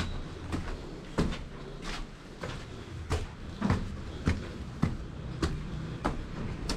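A steady series of sharp knocks, about one every 0.6 seconds, over a faint low rumble.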